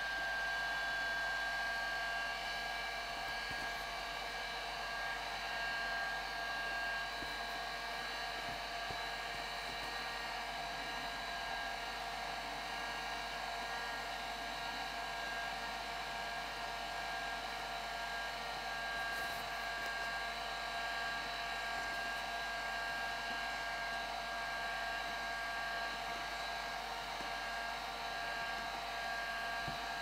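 Heat gun running steadily, blowing hot air with a steady whine over the rush of air, heating the foam so the pieces stick together.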